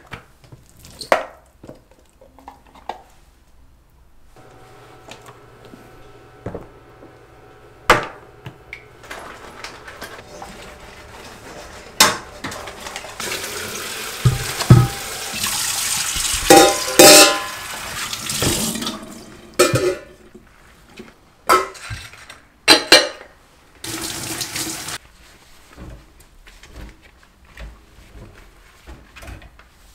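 Kitchen sink sounds: light knocks as items are set on the counter, then a tap running for several seconds with water splashing, followed by a few sharp clicks and a short second gush of water.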